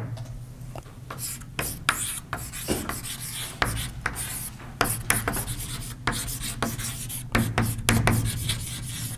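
Writing on a board: a run of short, irregular scratchy strokes, over a steady low hum.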